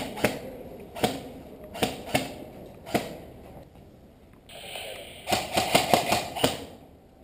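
Airsoft rifles firing: sharp snapping shots, about six spaced irregularly over the first three seconds, then a quick run of about eight shots between five and six and a half seconds in.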